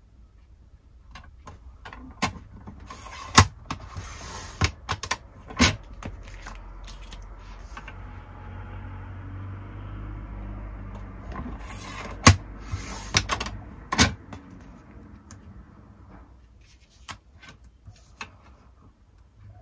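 A run of sharp clicks and knocks with two short bursts of rustling, and a small motor whirring steadily for about four seconds in the middle.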